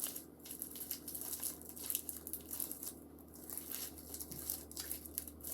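Homemade fluffy slime, thickened with activator and instant snow, being stretched and squeezed in the hands, giving off irregular crackling and small tearing sounds as its rubbery texture pulls apart.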